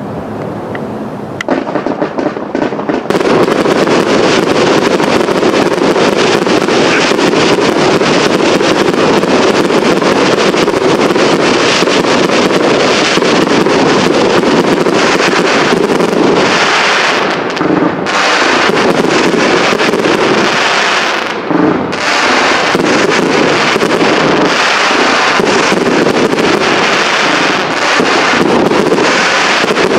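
Fireworks display: a dense, near-continuous barrage of crackling and bangs that builds up over the first few seconds, then runs loud with a couple of brief lulls near the middle.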